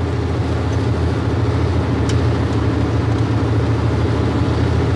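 An old truck's engine running steadily: a low, even drone.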